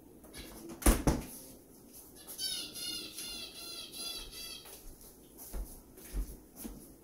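A bird gives a quick run of short, high calls, about four a second, a few seconds in. Two sharp knocks come about a second in.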